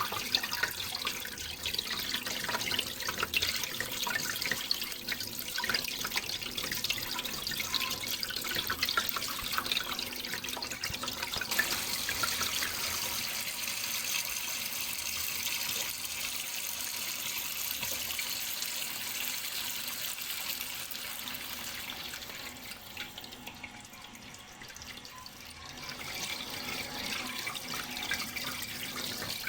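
Running water, splashing and trickling continuously, with fine droplet splashes thickest in the first third; it drops briefly quieter about three-quarters of the way through, then picks back up.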